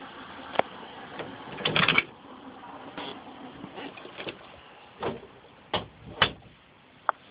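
Phone handling noise: a string of sharp clicks and knocks against a steady rustle as the phone and bedding are moved about, with a loud flurry about two seconds in.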